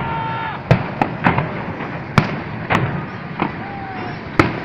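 Aerial fireworks bursting: about seven sharp bangs at uneven intervals, with one or two faint whistles that slowly fall in pitch between them.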